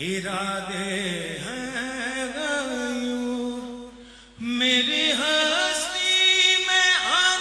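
Sung vocal music: a voice holding long, wavering notes that bend in pitch. It fades briefly about four seconds in, then comes back louder.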